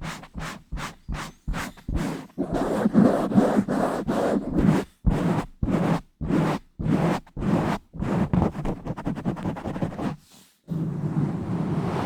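A bare microphone, with no cover, being scratched and rubbed directly in a rhythmic pattern. The first two seconds hold quick short strokes, about four a second. Longer strokes follow, then a brief pause near the end before a continuous rub.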